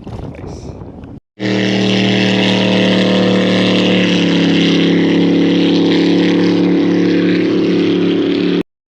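A boat motor running steadily at a constant speed. It starts abruptly about a second in and cuts off suddenly near the end.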